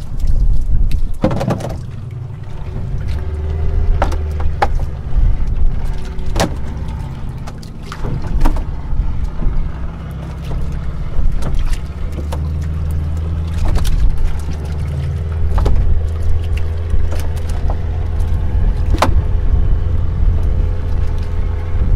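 Fishing boat's engine running steadily under way, a heavy low rumble with a faint steady hum above it and occasional sharp knocks.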